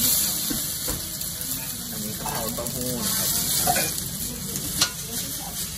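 Vegetables and tofu sizzling in a hot wok as they are stirred with a metal ladle, with a few sharp clanks of the ladle against the wok, the loudest near the end.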